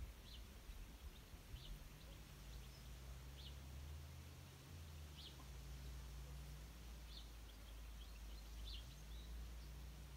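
Faint outdoor ambience: scattered short, high bird chirps every second or two over a low, steady hum that fades out for a couple of seconds past the middle.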